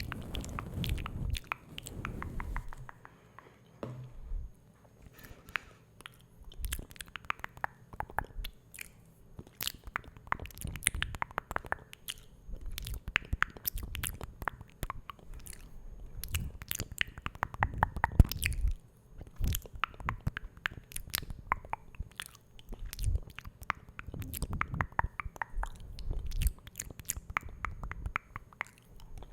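Close-miked ASMR mouth sounds: rapid, irregular wet clicks and smacks in runs, with a couple of short lulls.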